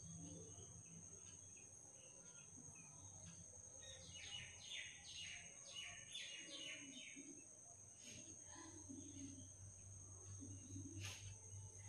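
Faint bird chirping, a quick run of short chirps a few seconds in, over near-silent room tone with a steady high hiss.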